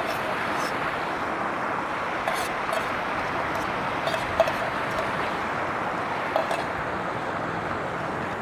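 Fast-flowing river rushing over stones, a steady even rush, with a few faint light clicks.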